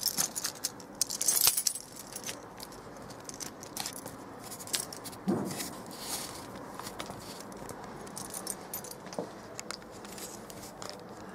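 Metallic jingling and clicking, loudest in the first two seconds, as the sliding metal bolt on a wooden gate is handled, with a dull knock about five seconds in.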